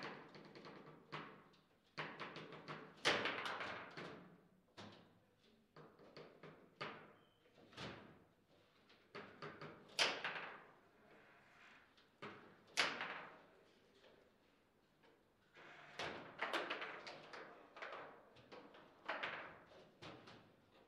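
Foosball table in play: the ball cracks off the plastic figures and the table walls, with the rods knocking, in an irregular string of sharp clacks. A few shots stand out loudest, about three, ten and thirteen seconds in.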